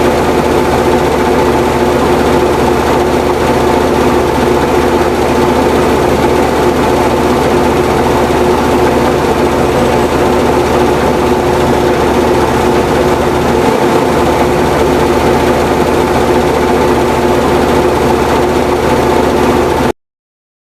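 Small electric motor of a homemade miniature tractor running steadily with a constant whine, cutting off abruptly near the end.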